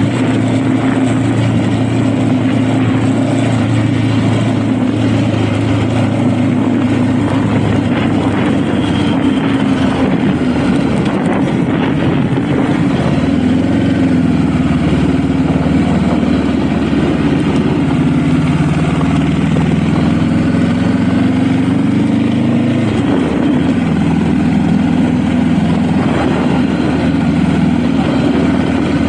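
Honda Rebel motorcycle engine running under way, its pitch shifting with throttle; it climbs gradually and then drops sharply about three quarters of the way through, as when the rider eases off or changes gear.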